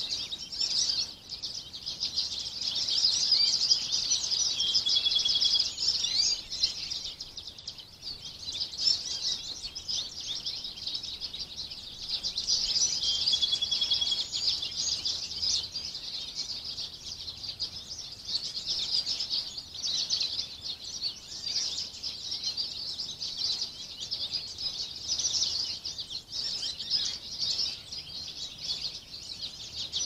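Many songbirds singing at once in woodland, a dense overlapping chorus of high chirps and trills that swells and eases, with a short held whistle twice.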